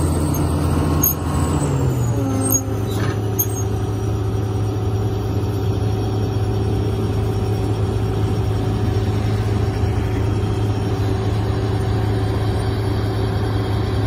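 John Deere 9670 STS combine running, its diesel engine loud and steady. About two seconds in, the engine note drops and a high whine falls in pitch as the machine slows, then it runs on evenly at the lower speed.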